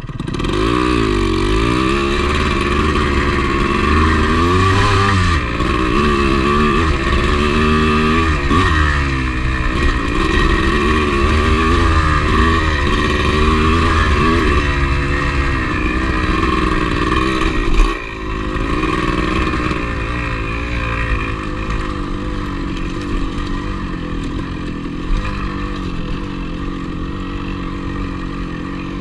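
Single-cylinder two-stroke engine of a 1985 Yamaha IT200 enduro dirt bike, its pitch rising and falling with the throttle. A sharp knock about two-thirds through, after which the engine runs steadier and lower.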